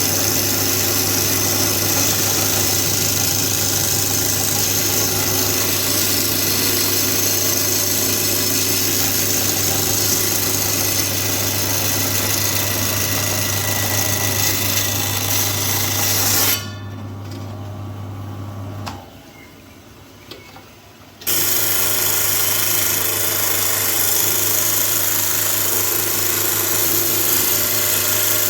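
Electric rock saw running and cutting through stone: a loud steady grinding whir over a motor hum. The cutting stops suddenly about two-thirds of the way through, with the motor humming on for a couple of seconds before falling quiet. The grinding starts again loudly a couple of seconds later.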